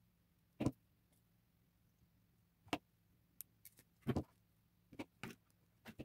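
Scattered faint metallic clicks and ticks of jewelry pliers and small bronze jump rings and chain being handled and put down on a tabletop, with about seven or eight separate clicks spread irregularly, including a quick double click around the middle.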